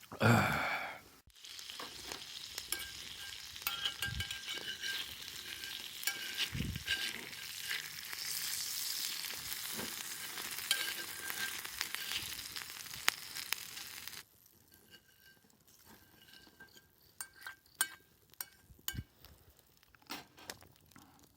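Pork sizzling in hot fat over a campfire, a steady high hiss with crackles that cuts off suddenly about 14 seconds in. A brief loud sound comes at the very start, and scattered light clicks and taps follow after the sizzling stops.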